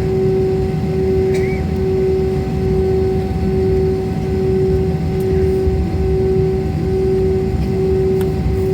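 Jet airliner engines running steadily, a low rumble with a steady hum that swells and fades a little more than once a second.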